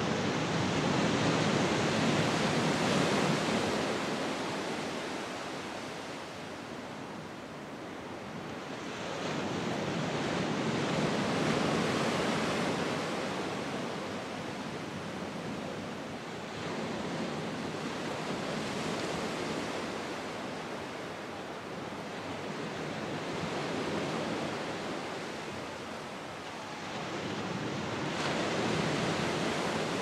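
Surf breaking on a beach, a steady wash of noise that swells and falls back in slow waves every several seconds.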